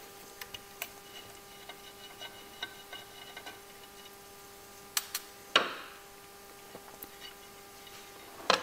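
Light clicks and taps of a small screwdriver and metal wire connectors as the wiring of a HiBlow septic aerator pump's motor assembly is disconnected. A few sharper clacks a little after five seconds in, the loudest with a short ring, and a heavier knock near the end as the pump's metal base plate is handled on the glass-topped bench.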